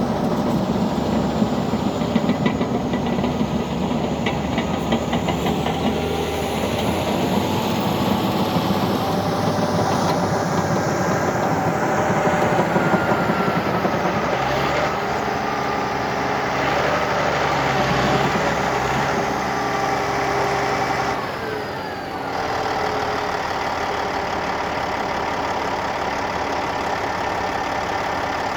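Heavy diesel earthmoving machinery, a Caterpillar D8T bulldozer and an A40G articulated dump truck, running steadily under work. The engine pitch shifts up and down as it is revved, with a brief dip in loudness about 21 seconds in.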